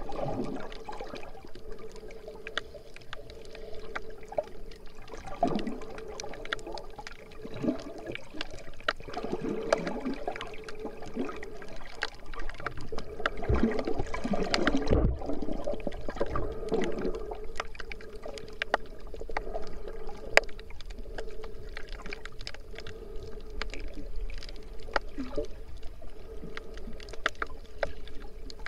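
Underwater sound heard through an action camera's waterproof housing: muffled swishing of moving water, strongest about halfway through, over a steady faint hum, with many scattered sharp clicks and one loud click near two-thirds of the way in.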